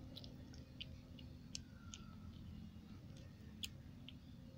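A kitten eating canned tuna off a plate: faint, irregular small clicks of its chewing and licking, several a second, over a low steady background rumble.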